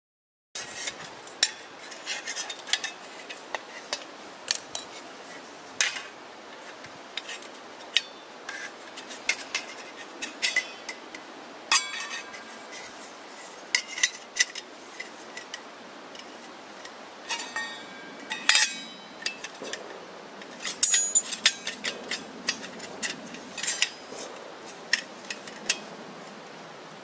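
Stainless-steel gasifier wood stove parts clinking and scraping against each other as they are handled and fitted together, in many short, irregular metallic knocks, some with a brief ring.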